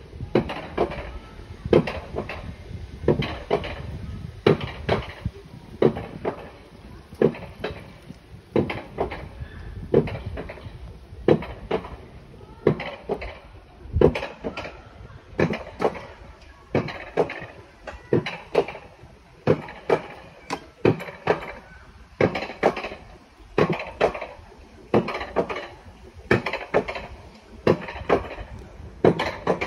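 Mountain coaster cart running down its steel rail track, clacking over the track joints in a steady rhythm of about three clacks every two seconds, over a low rolling rumble.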